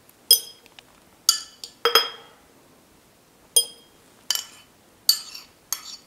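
A small spoon clinking against a bowl and a glass jar while pressed garlic is spooned into the jar: about seven short, ringing clinks at uneven intervals.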